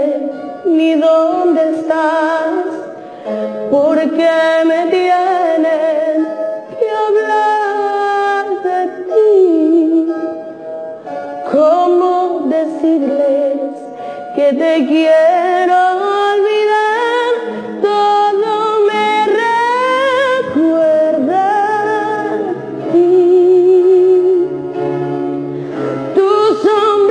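A woman singing a Spanish-language love ballad live into a handheld microphone, with long held notes and vibrato.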